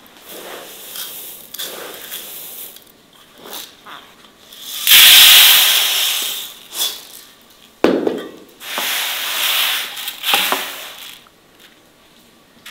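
Dry wheat grains rustling as hands stir them in an enamel basin, then a loud hissing rush as the grain is poured out onto a metal tray about five seconds in. A second rush of grain follows about eight seconds in, starting with a knock.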